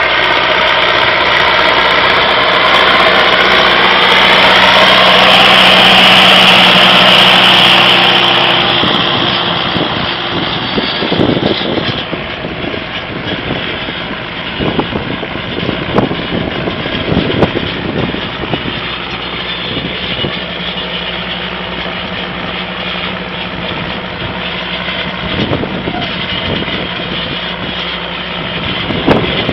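Ursus 1014 tractor's diesel engine working under load while pulling a plough through stubble. It is loudest about six seconds in as it passes close, with its pitch sliding, then it settles to a quieter, steady drone. Scattered knocks come in the second half.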